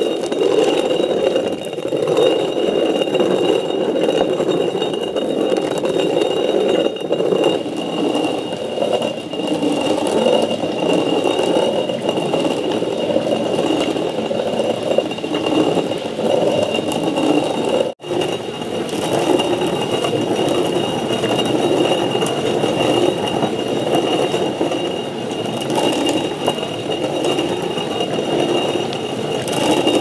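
Hand-turned stone quern grinding dried corn kernels: a steady, continuous grinding rumble of the upper millstone turning on the lower one as the kernels are crushed into meal.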